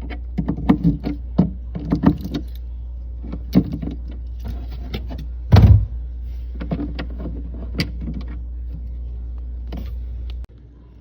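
A screwdriver turning out the screw on a fridge's interior light cover: scattered clicks, scrapes and knocks of the tool and hand on the plastic housing, with one louder thump about halfway through. A steady low hum sits underneath and stops suddenly near the end.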